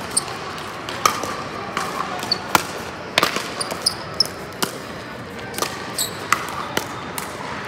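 Pickleball paddles striking a plastic pickleball in a rally, a string of sharp pops about every half second to a second, ringing in a large hall, with hits from neighbouring courts mixed in.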